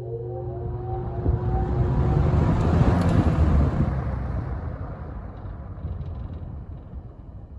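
1970–71 Windsor (Lakewood P-21) box fan starting up on high speed: an electric motor hum with tones rising as the blade spins up, swelling into a loud rush of air that peaks about three seconds in and then eases slightly.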